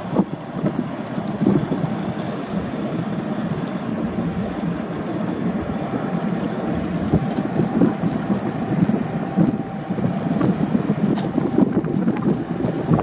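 Wind buffeting the microphone in uneven gusts, with a faint steady hum underneath.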